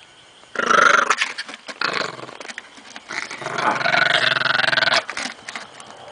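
Dog growling to guard its pork bone: a loud growl starts about half a second in, then a second, longer growl runs from about three to five seconds, with softer grumbling between and after.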